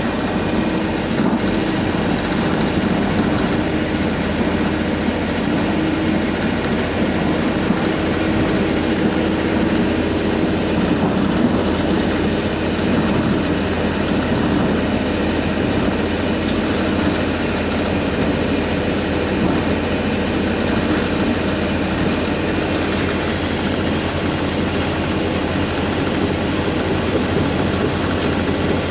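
An engine running steadily at one constant speed, with a low, even hum that does not change in pitch.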